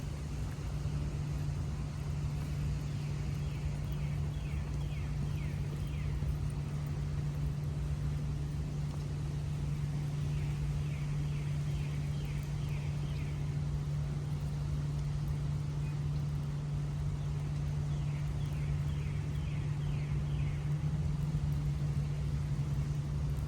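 Outdoor city background: a steady low hum with a rumble of distant traffic. Three times, about seven seconds apart, a bird sings a short trill of quick falling notes.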